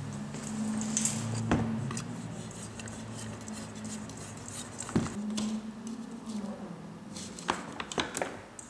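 Light clicks and knocks of hands handling small parts on a workbench as a bulb is screwed into a table lamp's socket. A low steady hum comes and goes behind them.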